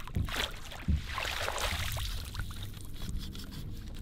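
Landing net scooping a fish out of the water beside the boat: a couple of knocks, then splashing and water running off the net for about a second.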